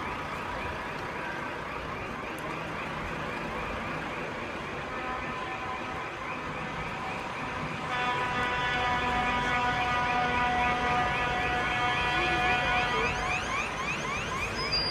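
A siren sounding a fast, repeating rising wail over the low rumble of lorry engines. About eight seconds in, a steady horn-like tone joins it for around five seconds and the sound grows louder.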